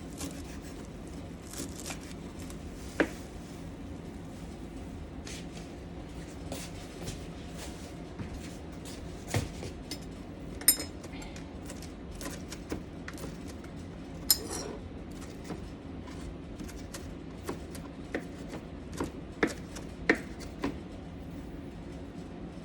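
Irregular knife taps and knocks on a cutting board with occasional clinks of kitchen utensils, scattered one by one rather than in a steady chopping rhythm, over a steady low background hum.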